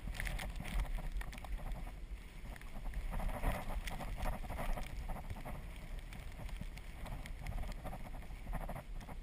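Tyres of an Azub recumbent trike rolling slowly through snow and slush, with an irregular crunching swish over a steady low rumble.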